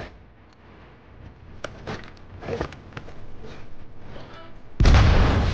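Film soundtrack: a few faint knocks and shuffles, then a loud hand-grenade explosion bursts out about five seconds in.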